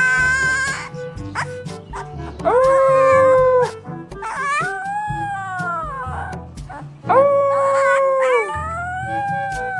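Huskies howling: a run of drawn-out, wolf-like howls one after another, about five in all, each rising, holding and falling away, the mother and the puppy taking turns.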